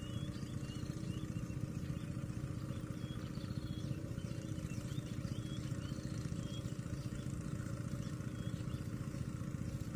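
A motor engine running steadily at an even speed, with faint short high chirps repeating over it.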